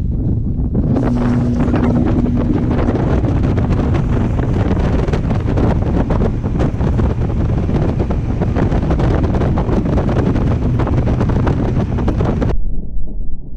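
Bass boat's outboard motor running at full throttle during a hole-shot run, with heavy wind buffeting the microphone and water rushing past the hull. About twelve seconds in, the sound cuts abruptly to a dull, muffled rush.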